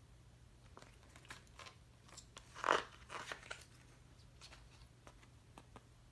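Pages of a glossy softcover booklet being flipped and handled: light paper rustles and ticks, with one louder rustle a bit under three seconds in and a few more just after.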